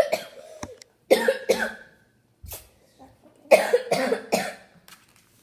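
A child coughing in short fits, about seven coughs in groups with pauses between them.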